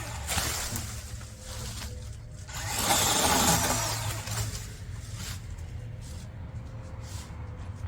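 Chainsaw running, revved up hard twice in the first few seconds and then settling to a steadier, quieter run.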